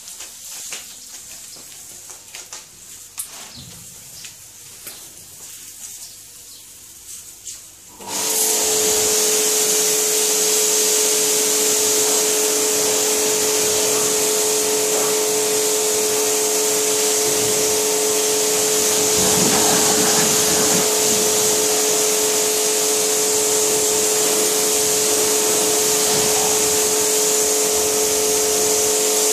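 A Kärcher 140-bar electric pressure washer starts about eight seconds in and runs steadily: a constant motor-and-pump whine under the hiss of a snow-foam lance spraying foam onto a car.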